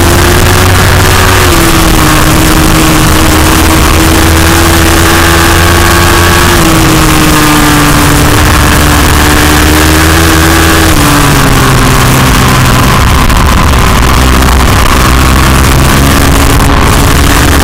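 Racing motorcycle engine running hard at speed under an onboard camera, with heavy wind rush over the microphone. The engine note holds and then shifts down in steps, most clearly about a second and a half in and again about eleven seconds in.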